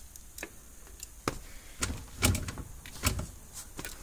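Several sharp clicks and knocks of a test light and wiring being handled against the plastic fuse panel and dash trim.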